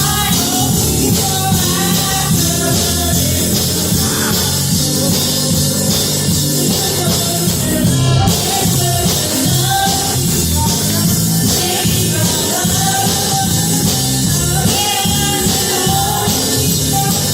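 Worship music: a band with drums and bass playing a steady beat while voices sing.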